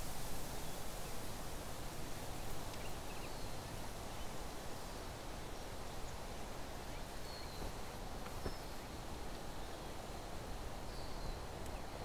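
Outdoor countryside ambience: a steady rustling hiss with a few faint, short bird chirps scattered through it.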